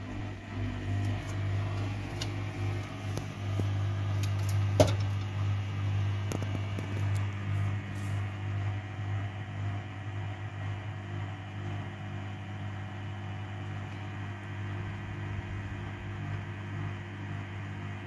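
Samsung front-loading washing machine running at the start of its quick wash cycle: a steady machine hum, with one sharp click about five seconds in.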